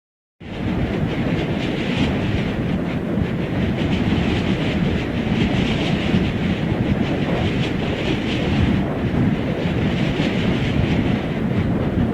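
Steady rushing wind of a flying sound effect, with a dense low rumble and a fine rapid flutter, starting about half a second in after a short silence.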